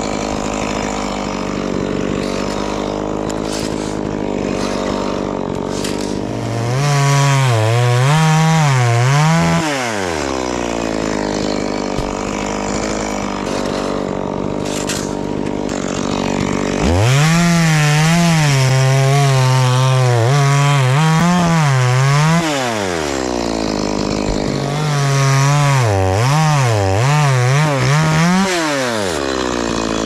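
Stihl chainsaw idling, then revved hard three times, for a few seconds each, the longest in the middle. Each time its pitch wavers up and down as the chain bites into the coconut palm trunk, then drops back to idle.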